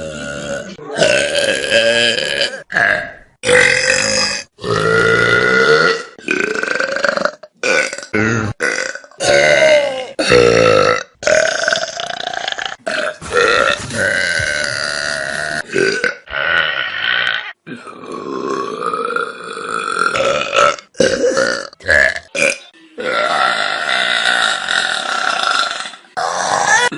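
A string of loud, drawn-out human burps, one after another, with sudden cuts between them.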